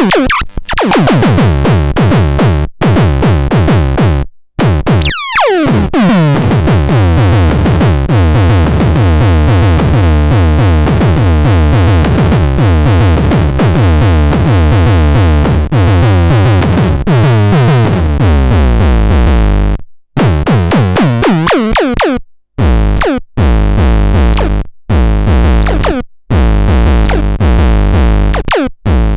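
Bumtron Mini electronic sound device playing loud synthesizer tones over a fast drum-machine beat with heavy bass. There are falling pitch sweeps near the start and about five seconds in, and the sound cuts off and restarts abruptly several times, most often near the end.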